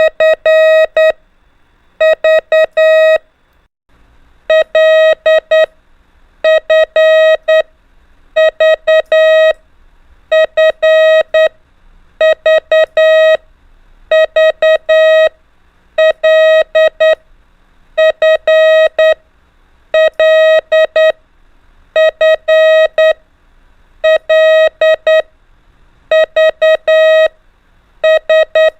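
Morse code (CW) practice tone: a single mid-pitched beep keyed in short and long elements, in groups about every two seconds, sending the letters L, F and V over and over.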